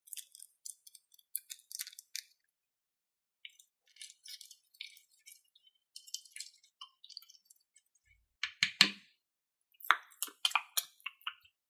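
Scattered clinks and wet clicks of a plastic spoon stirring sequin-filled clear glue in a glass bowl. The sounds come loudest in two clusters in the second half.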